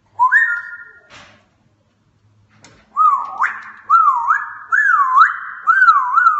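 African grey parrot whistling: a short rising whistle held briefly, then after a pause a long warbling whistle that swings up and down in pitch about twice a second.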